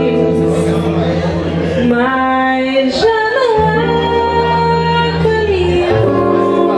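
A woman singing, holding and sliding between long notes, with acoustic guitar accompaniment.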